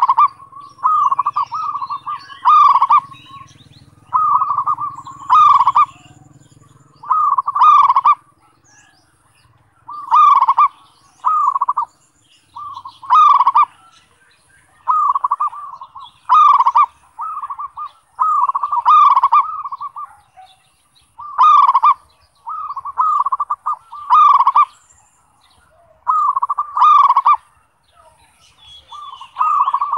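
Zebra dove (perkutut) cooing: short, clipped coos in quick phrases of two to four notes, a phrase about every two seconds.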